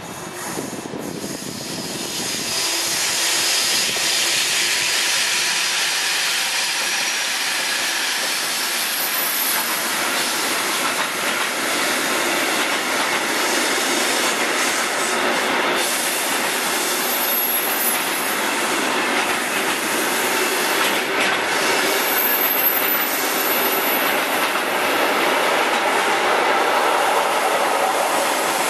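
Freight train of sliding-wall boxcars rolling past, a steady rumble of wheels on rail that builds over the first few seconds as the wagons arrive, with thin high wheel squeals coming and going.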